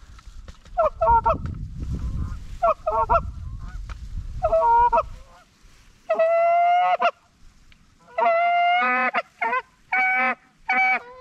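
Geese honking: short clucking honks about every two seconds, then longer drawn-out honks that come faster near the end. A low rumble lies under the first few seconds.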